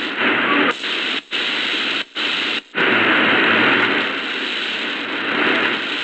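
Shortwave static and hiss from the Prunus J-160 radio's speaker while it is tuned between stations. The sound drops out briefly three times between about one and three seconds in, as the receiver steps in frequency.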